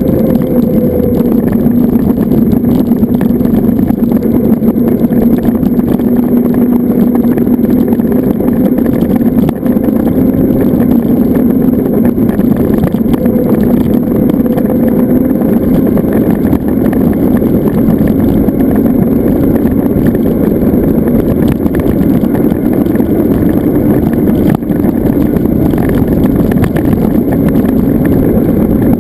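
Zero FX electric motorcycle on the move: steady wind and road noise, with a low hum that drifts slightly in pitch.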